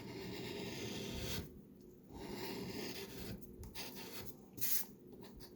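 A coin scraping the coating off a paper scratch-off lottery ticket: a long scrape of about a second and a half, a short pause, then more scraping in shorter strokes with gaps between them.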